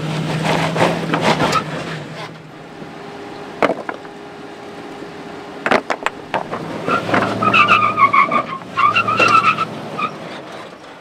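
Lexus GX470's 4.7-litre V8 working hard as the truck tries to climb a slickrock ledge, its tires scrubbing and squealing on the sandstone as they lose grip. A few sharp knocks come in the middle, and the squealing is loudest near the end.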